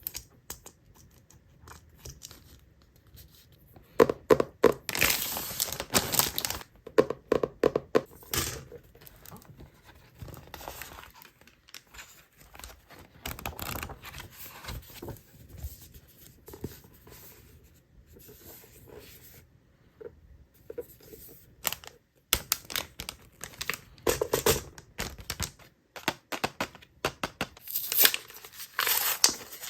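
Packaging being torn open and crinkled by hand: irregular bursts of tearing and rustling, busiest about four to nine seconds in and again near the end.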